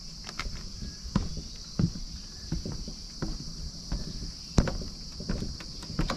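Footsteps knocking on the wooden planks of a creaky suspension bridge, irregular clunks about every half second, over a steady high-pitched chorus of insects.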